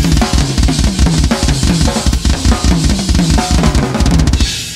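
Drum kit played at speed in a metal drum solo: rapid bass drum strokes under tom and snare fills, with cymbals washing over the top. About four and a half seconds in, the drumming stops and a cymbal is left ringing out and fading.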